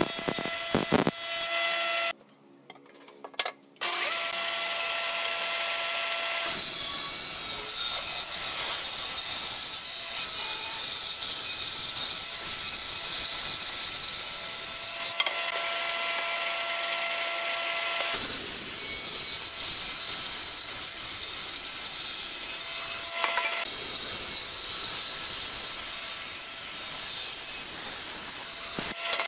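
A stationary woodworking machine, a jointer, runs with a steady motor whine and cuts softwood boards. From about six seconds in an even, loud rush of the cutter biting wood takes over. There is a short drop-out about two seconds in.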